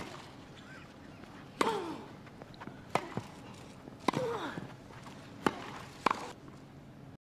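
Tennis rally on a grass court: rackets strike the ball six times, each a sharp pop. Short breathy grunts from a player follow some of the strokes.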